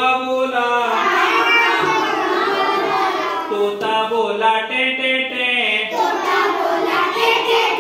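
A group of young children singing a Hindi nursery rhyme together.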